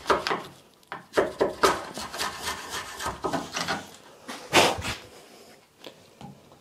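Wood chisel paring and scraping inside the bored latch hole in the edge of an oak door, pushed in and out by hand to square the hole. It makes a run of irregular wooden scrapes and knocks, one louder knock about four and a half seconds in, and goes quieter near the end.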